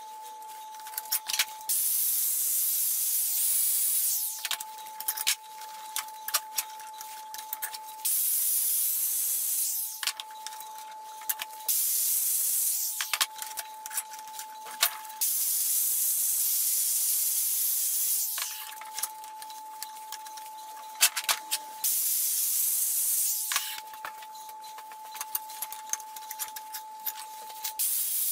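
Angle grinder with a flap disc sanding steel tubing: five loud stretches of hiss, two or three seconds each, alternating with quieter spells of a steady whine and scattered clicks.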